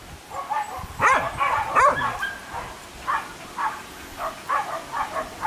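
Pig-hunting dogs barking and yelping in short, high calls: two loud ones about one and two seconds in, then a quick run of shorter yips.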